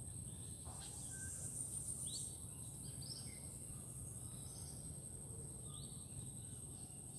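Faint outdoor nature ambience: a steady high-pitched insect trill with a few short bird chirps scattered through, over a low steady background rumble.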